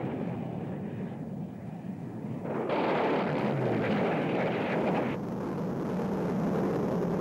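Jet noise from a Northrop F-5's twin General Electric J85 turbojets as it flies by: a steady rush that gets suddenly louder and brighter about two and a half seconds in, then drops back about two and a half seconds later.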